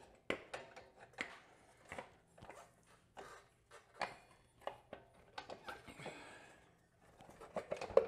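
A string of irregular light metallic clicks and knocks as the drum brake backing plate with its shoes is worked into the rear wheel hub of a Kawasaki KD175.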